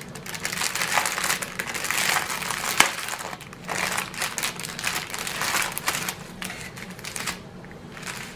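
Small plastic bags of diamond-painting drills crinkling and rustling as they are handled, with a sharp click about three seconds in.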